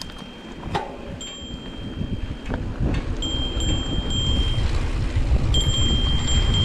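A mountain bike rolling on a dirt trail, giving off a thin, steady, high-pitched whine that cuts in and out three times. A couple of sharp knocks come early, and the rumble of tyres and wind grows louder toward the end as the bike gathers speed.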